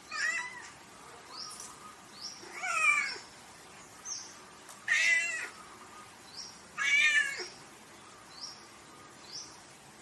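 Domestic cat meowing four times, about two seconds apart, each meow about half a second long. Several faint, very short high chirps come in between.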